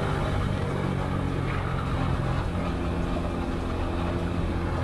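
TVS Apache RTR 160 4V motorcycle's single-cylinder engine running steadily as the bike rolls at around 60 km/h and slows slightly, heard from the rider's seat with a rush of wind and road noise.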